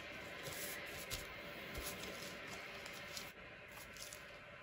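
Faint scattered clicks and taps of hands handling small objects, over low room noise.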